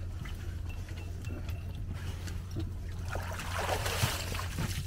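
A black retriever dog splashing as it hauls itself out of the water onto a duck blind, a loud rush of splashing and dripping water about three seconds in. A steady low hum runs underneath.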